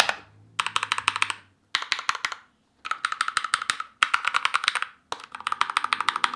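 Keychron K2 mechanical keyboard's keys being tapped in quick runs of about a second each, around a dozen sharp clicks a second, with short pauses between the runs.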